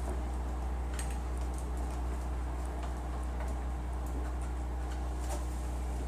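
Faint small clicks and scrapes of a flathead screwdriver working at plastic cable clips to pop them off a hood release cable, a couple of sharper ticks among them, over a steady low hum.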